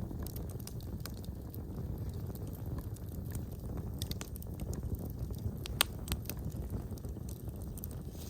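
Wood fire burning in a fireplace: a steady low rumble of the flames with irregular small crackles and snaps, and one sharper pop about two-thirds of the way through.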